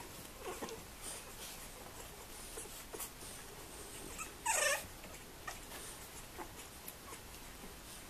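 Bulldog puppies playing: faint squeaks and small scuffling sounds, with one loud, high yelp about halfway through that drops in pitch.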